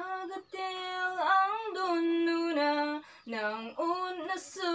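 A girl singing solo into a studio microphone: long held notes with slight bends in pitch, and a short pause for breath about three seconds in. No instruments are heard.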